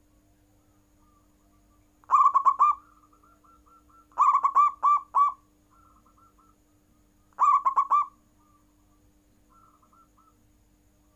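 Zebra dove (perkutut) cooing: three short phrases of rapid, bubbling coos, each a quick run of repeated notes, with fainter phrases of the same kind in between.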